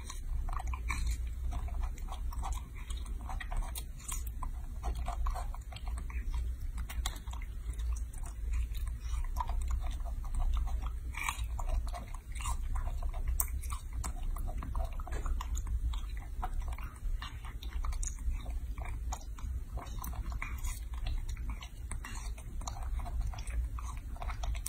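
Baby macaque chewing and smacking on peeled lychee flesh: a continuous run of small clicks and smacks, over a steady low hum.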